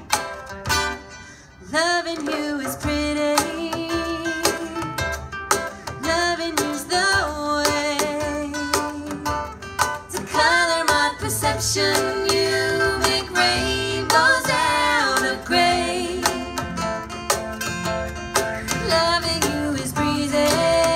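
A live band plays a song: a woman sings the lead with vibrato over strummed acoustic guitar. There is a brief break in the singing about a second in.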